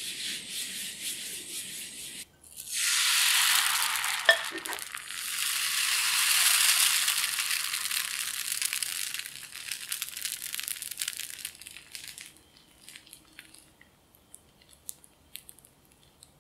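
A paper towel wipes oil around a hot non-stick frying pan with a hiss, then cocoa crepe batter is poured in and sizzles loudly on the hot pan as it is swirled, fading away over several seconds to faint scattered crackles as the thin crepe sets. A single sharp click comes shortly after the batter goes in.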